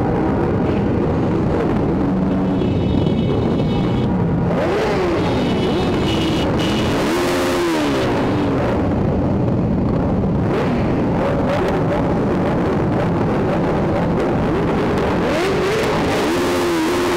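Several motorcycles riding slowly in a group, engines running with revs rising and falling again and again; the closest is the camera bike, a Suzuki SV650 V-twin with an Ixil exhaust.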